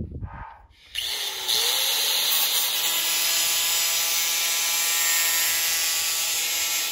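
A few clicks as the disc is fitted, then about a second in a DeWalt angle grinder is switched on and spins up to a steady high whine. Its disc grinds into a PVC pipe held in a vise, and the pitch sags slightly near the end.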